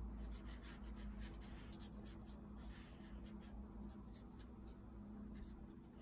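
Faint scratchy strokes of a watercolour paintbrush on paper, over a low steady hum.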